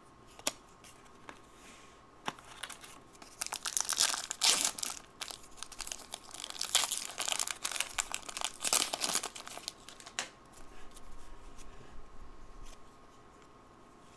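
Foil wrapper of a trading card pack being torn open and crinkled by hand, a dense crackling tear that is loudest in the middle. It gives way to softer rustling of the wrapper and cards as they are pulled out, which fades near the end.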